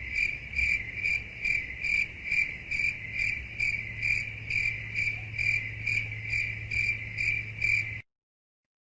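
Crickets chirping: a steady run of evenly spaced high chirps, about two a second, over a faint low hum, cutting off suddenly about eight seconds in.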